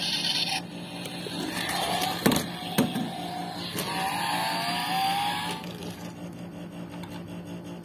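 Toy Chevrolet Camaro SS car being handled and run on a wooden floor: two sharp knocks a little after two seconds, then a whirring whine from its wheels and gearing that rises in pitch from about four seconds in and stops after about a second and a half.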